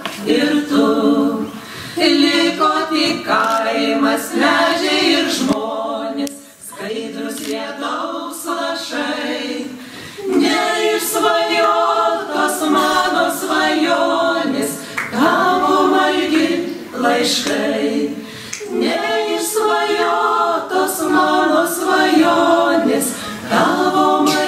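Women's vocal ensemble singing a romance song in harmony, in phrases separated by brief pauses.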